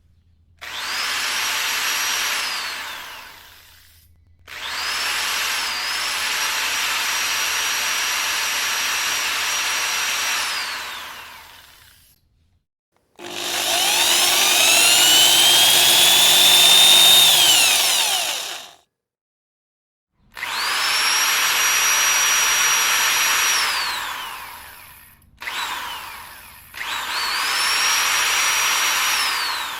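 Electric drill running in a series of separate bursts, each spinning up quickly to a steady high whine and winding down when the trigger is released. In one longer burst about halfway through, the whine climbs slowly in pitch as the motor speeds up; near the end come two short blips before a last full run.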